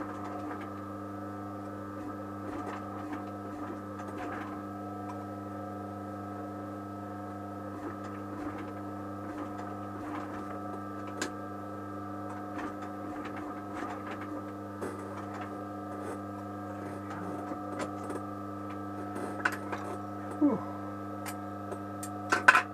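A steady machine hum with scattered light clicks and taps. Near the end come a few louder knocks.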